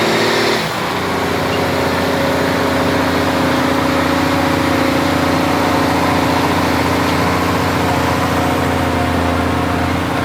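A tractor engine running steadily close by; its pitch drops slightly about half a second in, then holds even.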